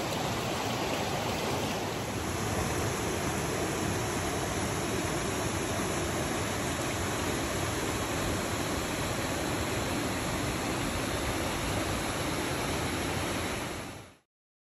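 Shallow creek water rippling and rushing over rocks, a steady even rush that fades out near the end.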